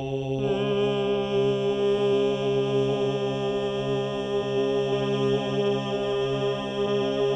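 Layered drone of one man's sung voice looped on a loop station: sustained chant-like tones held steady and repeating, with a new vocal layer joining about half a second in.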